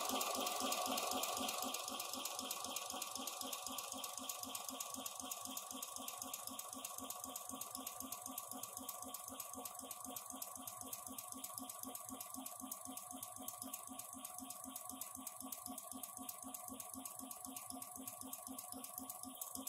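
Industrial sewing machine running steadily to drive its bobbin winder, filling a bobbin with thread: a quiet, even mechanical hum with a fast regular pulse and a faint steady whine.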